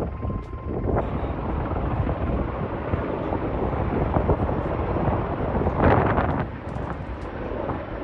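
Firefighting helicopter carrying a water bucket, its rotor and engine running steadily, with wind buffeting the microphone and a louder rush about six seconds in.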